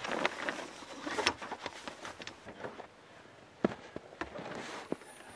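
Tent fabric rustling and flapping as a rooftop tent is unfolded, with scattered light clicks. After a quiet moment, a few sharp knocks come from the Jeep's rear tailgate being opened.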